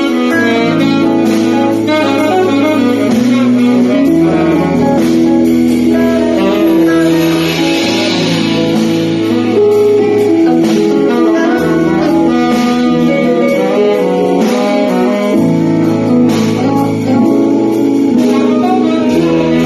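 Live band playing an instrumental passage of an R&B cover, a lead horn line over bass and chords, with no singing.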